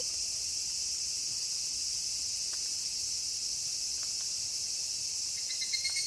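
Crickets chirring in a steady, continuous high-pitched night chorus between wolf howls. Faint high tones start to come in near the end.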